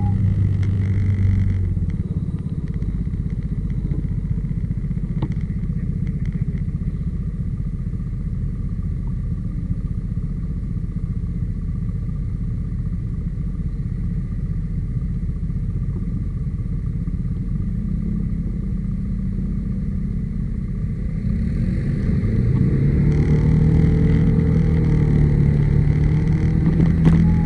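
Yamaha SMAX scooter's single-cylinder engine and drivetrain running on the move, free of the abnormal humming noise the owner is chasing, which fades out about two seconds in. About 21 seconds in the engine speeds up, rising in pitch and getting louder.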